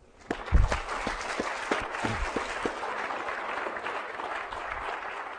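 Lecture-hall audience applauding at the end of a talk: steady clapping from many hands that starts about a third of a second in.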